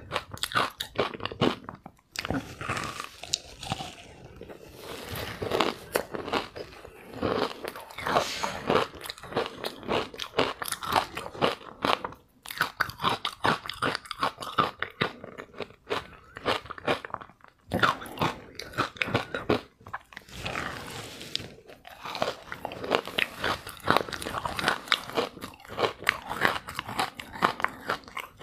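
Green freezer ice being bitten and chewed close to a clip-on microphone: a dense run of crisp crunches and crackles, with a few short pauses between mouthfuls.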